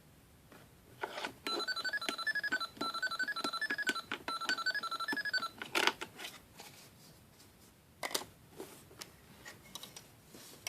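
Toy cash register's electronic dialing sound, set off by the pretend credit card pressing the button in the card slot: a quick string of beeps stepping up and down in pitch for about four seconds. Sharp plastic clicks come just before it and twice after.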